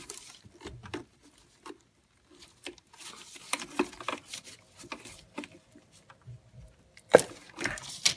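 A coil-on-plug ignition coil's rubber boot rubbing and scraping in the spark plug well as a gloved hand wiggles and pulls the coil loose on a Ford two-valve modular engine. Irregular rustles and small clicks, with one sharp click about seven seconds in.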